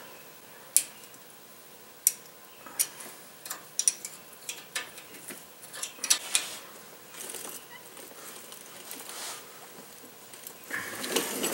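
Light metal clicks and taps, irregular and spread out, as small adjuster lock clips and their bolts are fitted to a differential's bearing caps and snugged with a small wrench.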